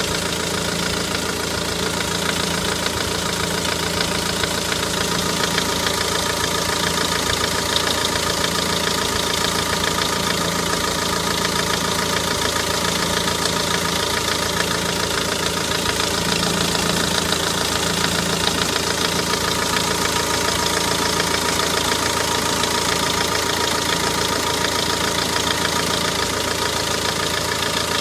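Renault Mégane 1.9 dCi four-cylinder turbodiesel idling steadily, without the belt squeak it used to have. Its crankshaft damper pulley, belt tensioner and auxiliary belt are newly replaced.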